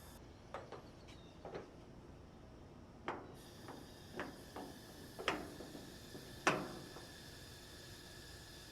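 About ten short, irregular knocks and clicks of objects being handled, the loudest about six and a half seconds in, over a faint hiss.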